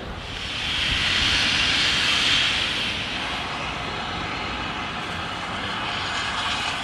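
Tank steam locomotive letting off steam: a loud hiss that swells about half a second in, peaks over the next two seconds, then carries on steadier.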